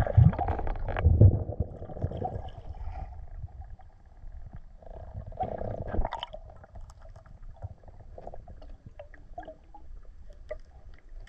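Muffled underwater sound of water moving around a submerged camera: a low gurgling rumble with heavy low thumps in the first second and a half, a shorter swell about six seconds in, then quieter scattered crackles.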